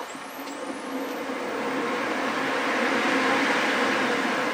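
Colchester Bantam Mk1 lathe starting up in reverse on its inverter-fed three-phase motor. A high whine rises in pitch over the first second as the spindle speeds up, and the running noise of the headstock gears grows steadily louder.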